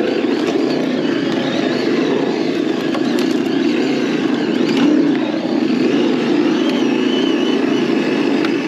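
Traxxas TRX-4 radio-controlled scale crawler truck driving over rock and a leafy dirt trail, with a steady engine-like drone that swells briefly about five seconds in.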